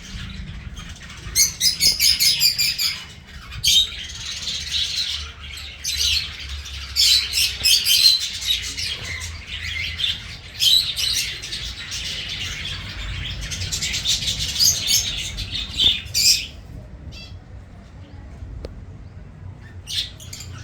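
A colony of pet birds chirping and twittering together in repeated dense bursts with short lulls, thinning out and quieter over the last few seconds.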